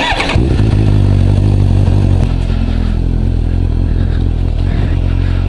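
Suzuki GSR750's inline-four engine running as the motorcycle rides along a wet road, heard from a camera on the bike. It picks up briefly in the first half second, then holds a steady note under a constant wash of road and wind noise.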